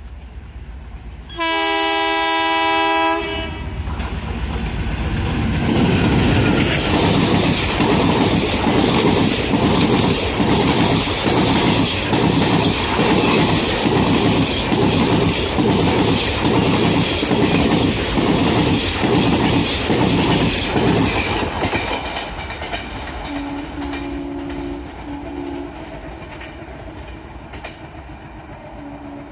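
A WDM-3A diesel locomotive's horn sounds loudly for about two seconds. Then the express train runs past at speed: a long, loud clatter of coach wheels over rail joints in an even rhythm, fading after about twenty seconds. Short, fainter horn toots come twice near the end.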